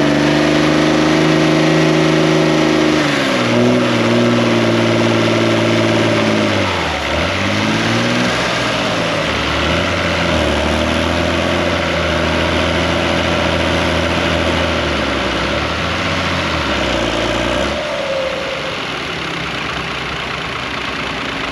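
Vintage tractor engine working hard while dragging a weight transfer sledge in a tractor pull. Its revs drop about three seconds in as the load builds, dip sharply around seven seconds, recover and waver, then the engine note falls away near the end.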